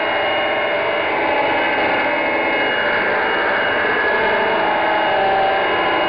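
Live noise music: a loud, dense, unbroken wall of noise with a few held tones running through it.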